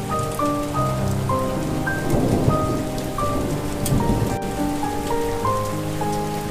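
Steady rain falling, with a slow, soft melody of held notes over it. A low rumble of thunder swells about two seconds in.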